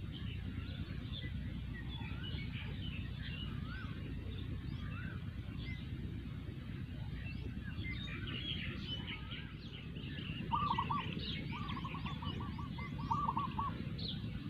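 Several birds chirping with short, scattered calls, and one bird giving a rapid trill about ten seconds in, over a steady low background rumble.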